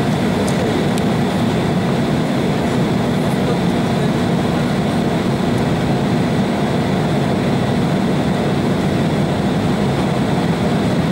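Steady cabin noise of an Embraer 190 airliner in flight, heard from a window seat beside its wing-mounted turbofan: a constant low rumble of engine and airflow with faint steady high tones over it.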